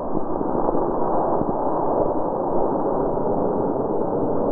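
A model rocket launch heard as a steady, muffled rushing noise with all the high end cut off, as though filtered or slowed down. It follows the sharp burst of ignition.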